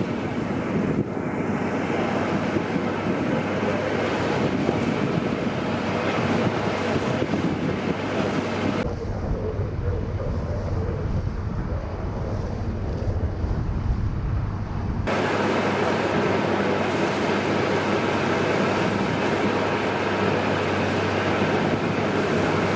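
Wind rushing over the microphone with the steady low drone of a cruise boat's engines and water noise underneath. The sound changes abruptly about nine seconds in, becoming boomier and duller, and changes back about six seconds later.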